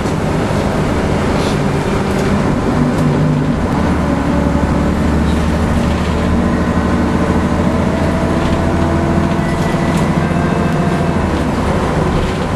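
Cabin sound of a Scania N113CRB non-air-conditioned city bus on the move: its diesel engine and drivetrain running, with road noise through the open windows and occasional brief rattles. The engine note shifts in pitch a few times as the bus changes speed.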